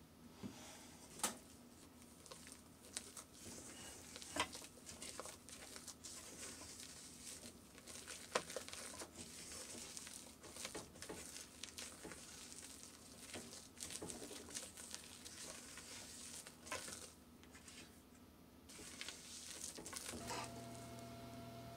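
Rubber spatula folding a whipped white mixture into thick chocolate cake batter in a metal bowl: soft wet squishing and scraping, with scattered sharp clicks as it knocks the bowl. A low steady hum comes in near the end.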